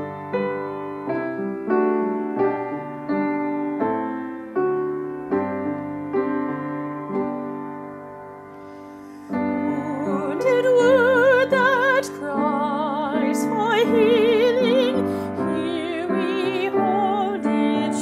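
Piano playing a slow introduction of separate struck, decaying notes. About nine seconds in, a woman starts singing with a wide vibrato over the piano accompaniment.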